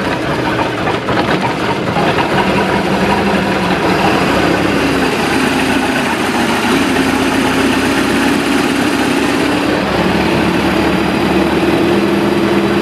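Carbureted inboard engine of a stern-drive boat idling steadily with the drive put in gear, its pitch creeping up slightly in the second half.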